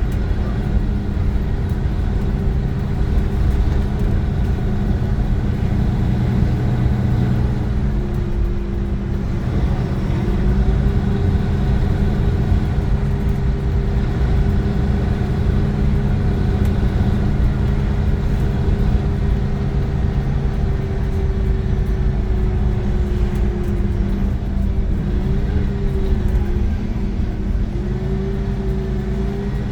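Iveco Crossway LE 12 bus with a Cursor 9 inline-six diesel and ZF gearbox, running on the move with a steady low drone. Above it is a whine that dips about a quarter of the way in, holds fairly steady, then wavers up and down near the end.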